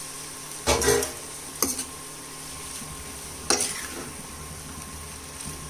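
A cooking utensil scraping and clattering against a frying pan three times as boiled noodles and vegetables are stirred and tossed together, over a steady sizzle of frying.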